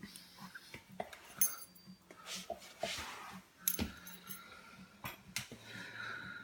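Hook pick and tension wrench working the pins of a padlock: scattered small, sharp metallic clicks and light scrapes of steel on brass, irregularly spaced, a few slightly louder ones near the middle and about three-quarters through.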